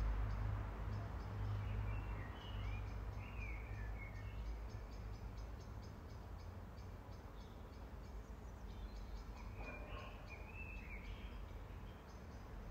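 Outdoor night ambience: insects chirping in a steady rhythm of about three chirps a second, while a bird gives short warbling calls twice, about two seconds in and again near ten seconds. Underneath runs a low rumble that fades over the first few seconds.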